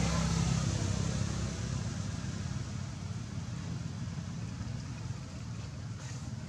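A motor vehicle's engine running steadily as a low hum, loudest at the start and slowly fading.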